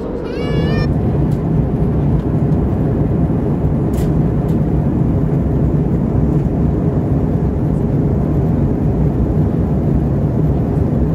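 Airbus A320 cabin noise heard from a passenger seat: the steady roar of the engines and airflow, with a low hum. A short wavering tone sounds right at the start, and the noise grows a little louder under a second in, then holds steady.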